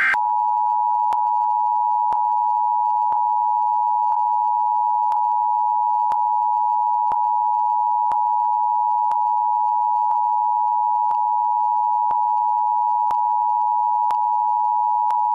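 Emergency Alert System attention signal: the two-tone alert beep held steady and unbroken, announcing an emergency alert, with faint ticks about once a second.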